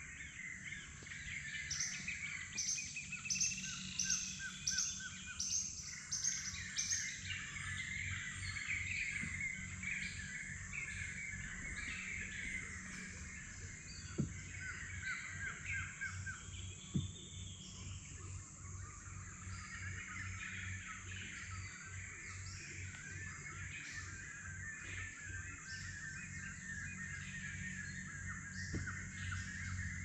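Amazon rainforest birds calling, several at once, some in quick runs of repeated notes, over a steady high-pitched hum and a low rumble.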